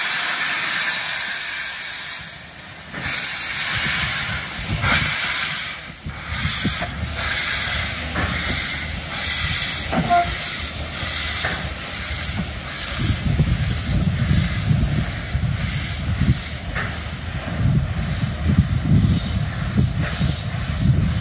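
Vale of Rheidol narrow-gauge steam locomotive pulling away. A loud hiss of steam comes first, then exhaust chuffs start about three seconds in, roughly one a second, and come steadily faster. A low rumble of the train on the rails builds in the second half.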